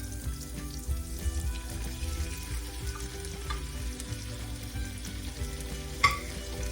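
Seafood and basil stir-frying in a hot pan, sizzling steadily as it is stirred, with one sharp clink about six seconds in.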